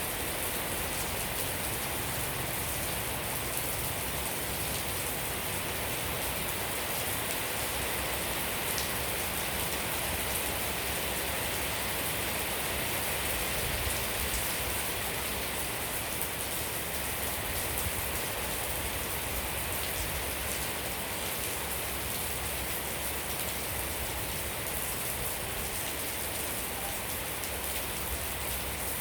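Steady rain falling, an even hiss of many drops with fine ticks of single drops striking surfaces.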